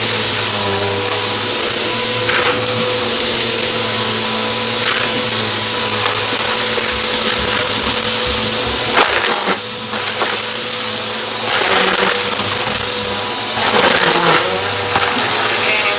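Vacuum cleaner running steadily with a loud hiss and a steady whine, with a few short rattles of crunchy debris being sucked up.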